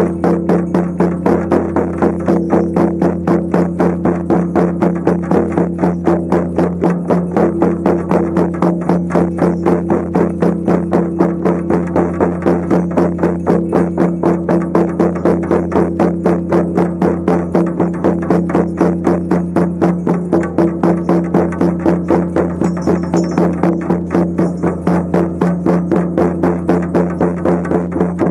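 Shamanic frame drums beaten in a steady, even rhythm of about three strokes a second, over a steady low drone.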